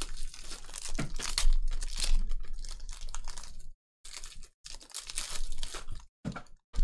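Foil trading-card pack wrapper being torn open and crinkled by hand: a run of crackling rips and crumples, with a brief pause a little under four seconds in before more short crinkles.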